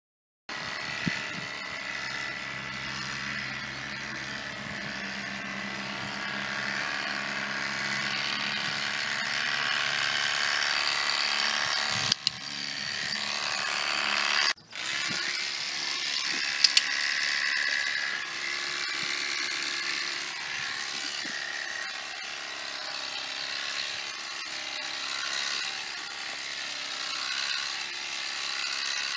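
Corded electric horse clippers running with a steady buzz as they shave a horse's coat. The buzz breaks off briefly about halfway through, and a few sharp clicks come shortly before and after the break.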